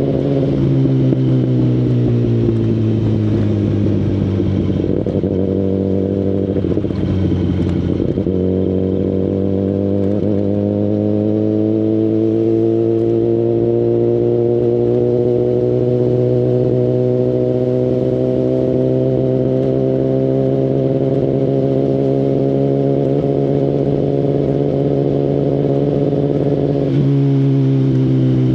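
Kawasaki Ninja ZX-10RR's inline-four engine running through an Akrapovic full-system exhaust while riding. The engine note falls for the first few seconds, then climbs slowly and steadily for about twenty seconds before dropping suddenly near the end.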